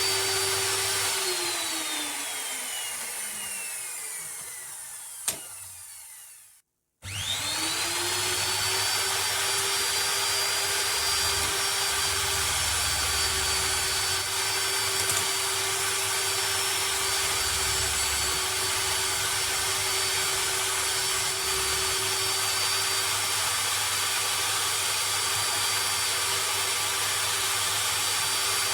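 Small electric power-tool motor running with a steady whine, then switched off and winding down with falling pitch over about four seconds, with a click near the end of the run-down. After a brief break it starts again, spins up within a second and runs steadily.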